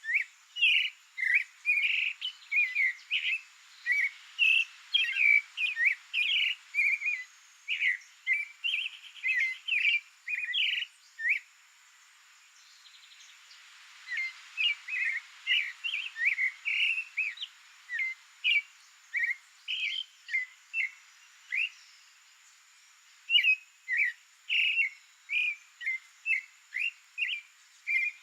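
Creamy-bellied thrush singing: a long run of short, varied whistled notes in quick succession, broken by a pause of a couple of seconds near the middle before the song carries on.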